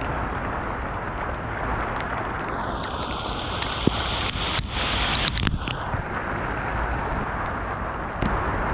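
A steady rushing noise, with a brief higher hiss in the middle and a few sharp clicks around the same time.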